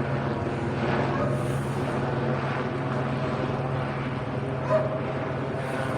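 Police helicopter's rotor and turbine drone overhead, steady with a low, evenly pulsing hum. A brief sharper sound cuts through about five seconds in.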